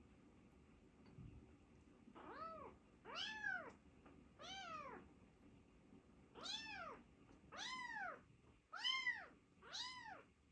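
Young kitten meowing repeatedly: seven high, thin calls about a second apart, each rising and then falling in pitch, starting about two seconds in.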